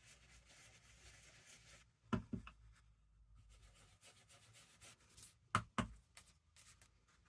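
Faint rubbing of an ink blending tool working Distress Oxide ink through a stencil onto paper, broken by two pairs of sharp knocks, one about two seconds in and one about five and a half seconds in.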